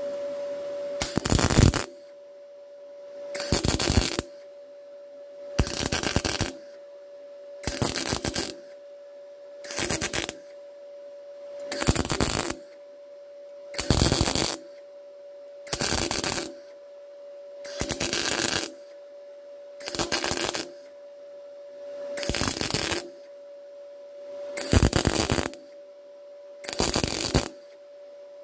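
MIG welder laying a row of short tack-weld dabs on thin sheet steel: about thirteen bursts, each under a second, coming roughly every two seconds. This is stitching a seam piecemeal, dab by dab, then joining the dots, rather than running one continuous bead. A steady hum runs underneath between the bursts.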